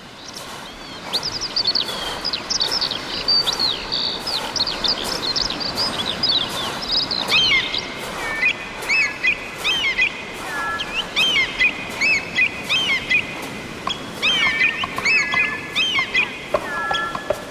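Many short, high chirps and whistles, overlapping and sweeping quickly up and down in pitch, with sharp clicks at intervals and a steady hiss beneath.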